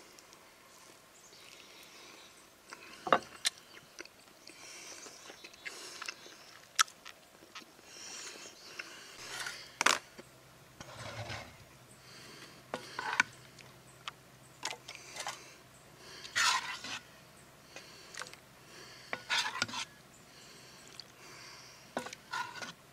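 A metal ladle scraping and knocking inside a cast-iron Dutch oven as beans are scooped out and served into a bowl: separate sharp knocks and short scrapes every few seconds.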